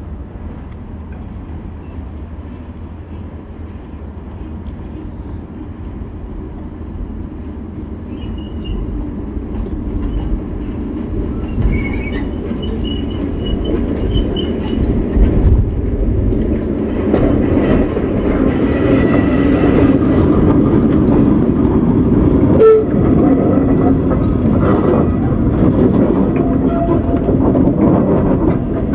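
Diesel shunting locomotive hauling a rake of MGR coal hopper wagons, its engine and the train getting steadily louder as it approaches. The loaded hoppers then rattle and clatter past close by over the rail joints, with one sharp knock late on.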